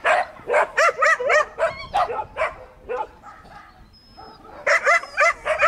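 Small dog barking repeatedly in quick, high yips as it runs. There are about ten barks in the first three seconds, a pause of about a second and a half, then four more near the end.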